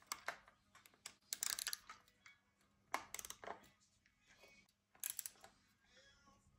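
Screwdriver working the mounting screws of a dirt bike's aluminium radiator, in four short bursts of rapid clicking and metal scraping.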